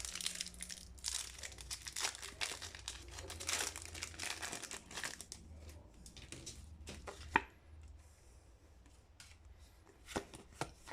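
Foil wrapper of a Pokémon trading card booster pack crinkling and tearing as it is opened, in dense rustling bursts for about the first five seconds. A sharp click comes about seven seconds in, followed by quieter handling and a few light taps near the end.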